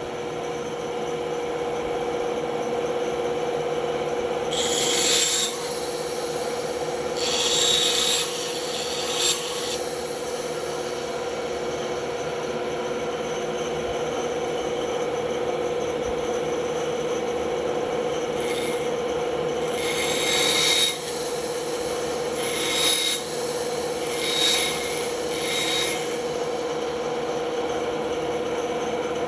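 Band saw running steadily with a constant hum, its blade biting into a workpiece in a series of short cuts that add a hissing, rasping sound several times.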